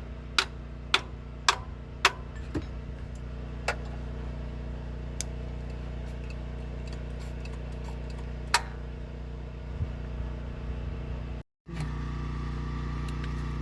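Metal tool tapping on a carburetor to free a sticking accelerator pump: four sharp taps about half a second apart, then a few more scattered ones. A steady engine hum runs underneath.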